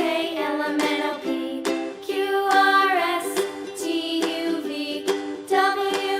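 Background music: a light, upbeat tune with regularly plucked notes under a sung or played melody line.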